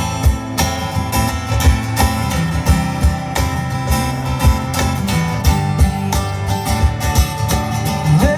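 Live country band playing an instrumental break with no vocals: guitar over a steady drum beat.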